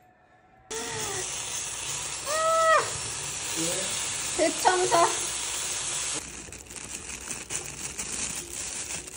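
Pot of broth boiling over onto a hot induction cooktop, the spilled liquid hissing and sizzling loudly on the glass. A voice exclaims twice in the middle. The hiss eases a little after about six seconds.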